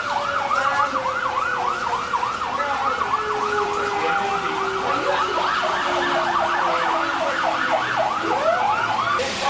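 Emergency vehicle siren in a fast yelp, its pitch sweeping up and down about four times a second, with a lower siren tone sliding slowly downward underneath and a new rising wail starting near the end.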